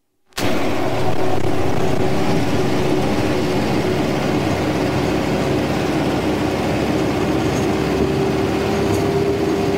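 Road vehicle on the move: a steady engine drone with a constant hum and road noise, starting suddenly just after the beginning.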